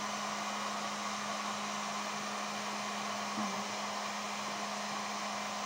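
Electric heat gun blowing hot air steadily: a constant rushing with a low, steady hum.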